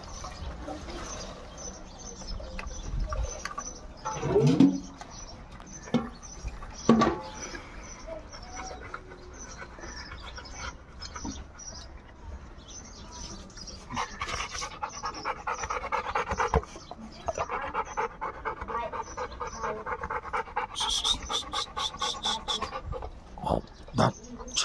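A dog panting quickly and evenly for several seconds, starting about halfway through. Earlier come two short, loud voice-like sounds, about four and seven seconds in.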